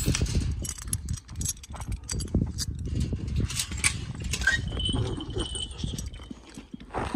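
A large Kangal dog moving close by on dry grass and dirt, with footsteps and the rustle and knocks of a handheld phone. There are several short clicks and rattles, and a brief high tone about two-thirds through.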